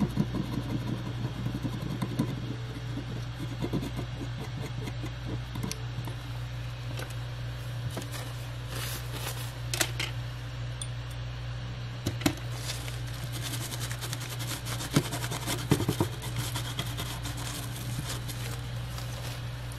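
A steady low mechanical hum, like a small fan or motor, runs throughout, with a few light clicks and scrapes of soldering tools on the circuit board as leftover solder is cleaned off the pads.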